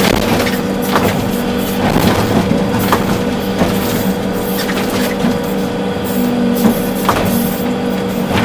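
Volvo EC380D excavator's diesel engine running steadily under working load, heard from inside the cab, with scattered knocks and clunks roughly a second apart from the machine at work.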